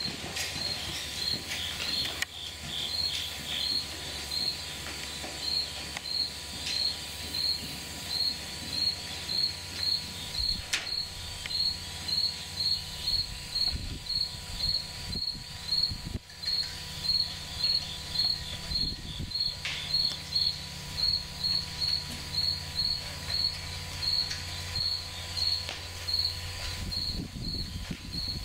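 An insect chirping steadily in a high, even rhythm of about two chirps a second.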